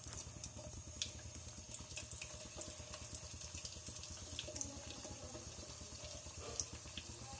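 Lavang latika pastries deep-frying in hot ghee: a faint steady sizzle with scattered small pops and crackles, over a low steady hum.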